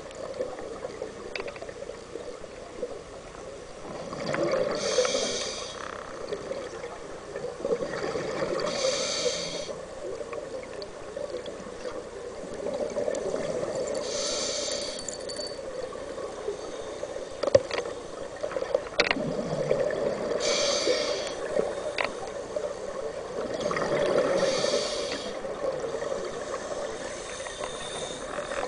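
Scuba diver breathing through a regulator, heard underwater through the camera housing: a hissing breath every four to six seconds over a steady bubbling wash, with a few sharp clicks in the middle.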